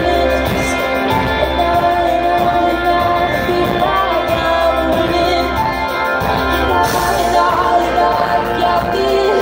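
Live pop band playing: a woman sings the lead over electric bass, guitar, keyboards and a steady drum beat, heard from in the audience.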